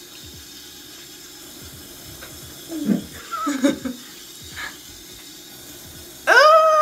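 A young woman's brief laughter about three seconds in, then near the end a loud, long, high-pitched 'Ah!' cry that holds its pitch before dropping away.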